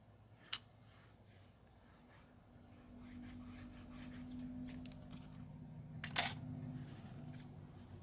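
Glue stick rubbed back and forth over cardstock, with a few light clicks and a sharper tap about six seconds in.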